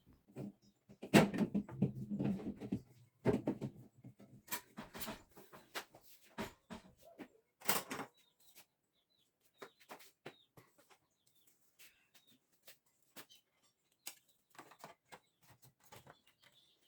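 Irregular knocks, clicks and light clatter of food containers and items being set onto the shelves of a freshly cleaned refrigerator, busier in the first half and sparser toward the end.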